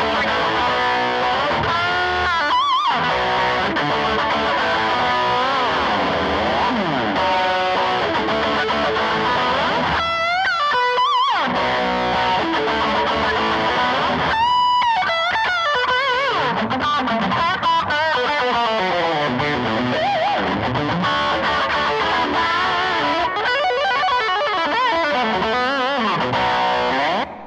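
Electric guitar played through a Blackstar HT5R valve combo amp with a distorted tone: a lead line with string bends and vibrato. It stops abruptly near the end.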